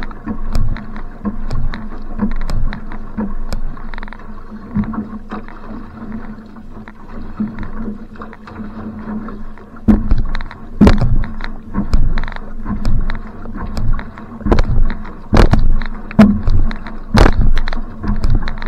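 Single-blade paddle strokes driving an outrigger canoe (va'a): the blade catching and pulling through the water with splashing in a steady stroke rhythm. The strokes are lighter for the first half, then harder and louder from about ten seconds in, a little over one stroke a second.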